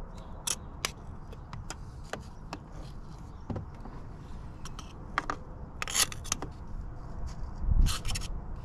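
Scattered light clicks and short scrapes of tools and parts being handled, with a cluster of louder clicks about six seconds in and again near eight seconds.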